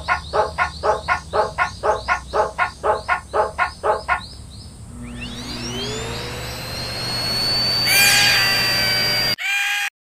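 Japanese level-crossing alarm ringing its 'kan-kan' bell in a quick even rhythm, about four strikes a second, stopping about four seconds in. A whine then rises and settles into a steady high tone, with a loud sweep near the end before it cuts off suddenly.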